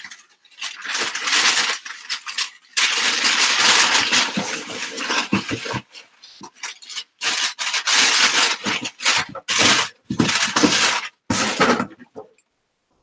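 Packing paper crinkling and rustling as an item is packed into a cardboard shipping box, in a series of bursts of a second or two each, with a longer stretch about three seconds in.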